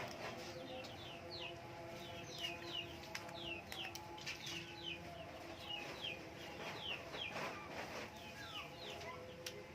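Chickens with chicks, the chicks peeping in many short, high, falling peeps throughout, over a steady low hum.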